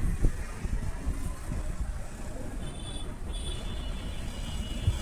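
A steady low rumble of background noise, with faint high thin tones in the second half.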